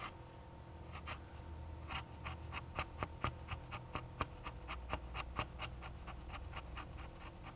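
A sharp wood chisel paring slicing cuts across the dense end grain of a rifle stock's fore-end: short, crisp scraping shaves, a couple of single strokes at first, then about three to four a second from about two seconds in.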